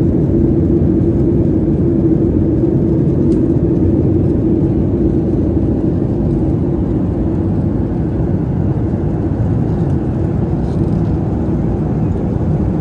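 Steady cabin noise of a Boeing 737 airliner in flight: the drone of the jet engines and rushing air heard inside the cabin, with a steady hum that fades partway through.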